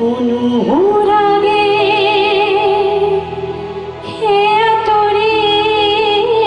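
Female voice singing long held notes with vibrato over keyboard accompaniment, in two phrases with a short break about three seconds in.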